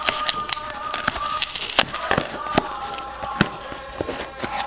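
Cardboard mailing box being pried and torn open by hand: irregular crackling and sharp snaps of cardboard and packing tape giving way.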